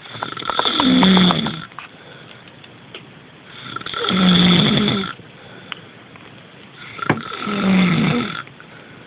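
A person snoring: three snores about three and a half seconds apart, each lasting about a second and a half, with a short click just before the third.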